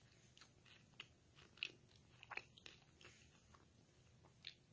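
Near silence: room tone with a scattering of faint, short clicks.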